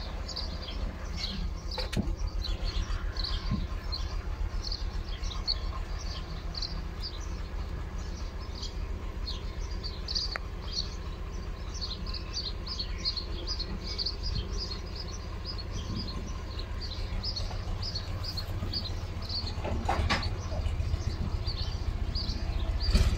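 Small birds chirping in quick, short notes, several a second without pause, over a steady low rumble.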